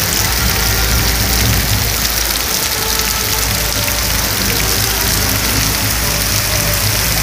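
Torrential rain pouring onto a paved street, a loud, steady hiss.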